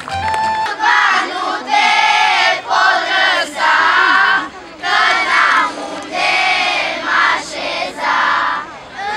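A group of children singing a Romanian colindă (Christmas carol) in unison, loudly and in short chanted phrases with brief breaths between them. A few hand claps can be heard at the very start.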